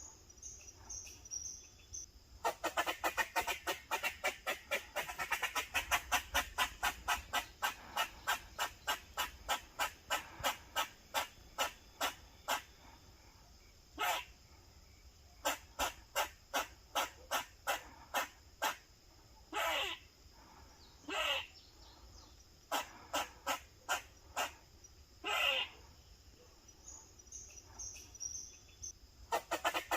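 Grey squirrel barking in protective alarm: a fast run of short, sharp barks at about four a second that slows after several seconds. Then come spaced single calls, a few of them longer and drawn out, and a fast run starts again near the end.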